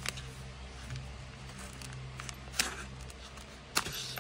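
Knife packaging being handled and unwrapped: soft rustling with two sharp scratchy sounds, one a bit past the middle and one near the end, over a low steady hum.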